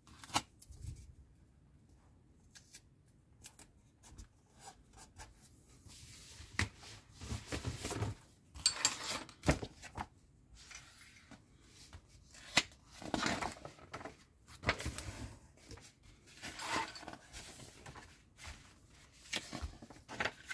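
Paper rustling as a glossy partwork magazine is handled and its pages are turned, in several short bursts, with a few small clicks of handling on the table.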